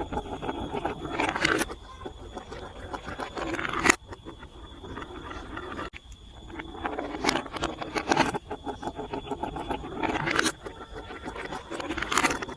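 Marbles rolling and clattering down a building-block marble run, a steady stream of clicks and rattles with louder clacking runs every second or two.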